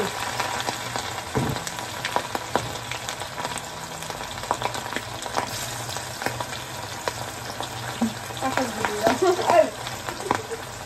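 Food frying and sizzling in a pan on the stove, with scattered clicks of a utensil stirring against the pan.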